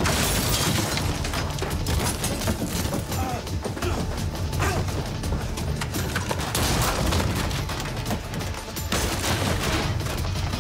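Sound of a film fight: two men scuffling and grappling, with many quick thuds and knocks of bodies against furniture, mixed with background music.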